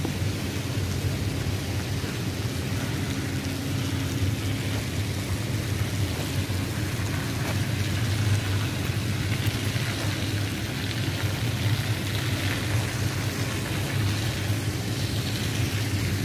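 Steady low machinery hum under a constant hiss.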